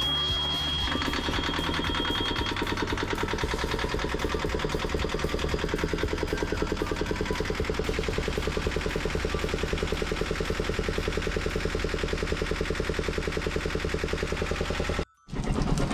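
Small Yanmar marine diesel starting and running with a fast, even clatter while its impeller draws cooling water through a hose from a sink. A high steady warning buzzer from the engine panel sounds for the first couple of seconds and then stops.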